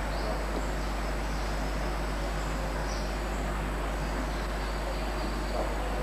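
Steady background hiss over a constant low hum, with faint high-pitched insect chirping now and then.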